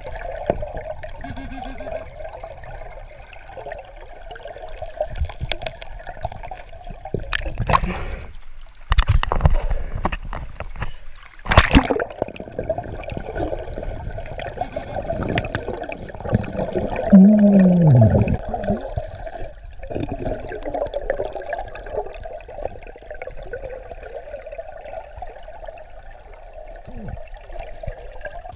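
Muffled rush of river water heard underwater, with several sharp knocks from about a quarter of the way in to before the middle, and a brief loud sound falling in pitch a little past halfway.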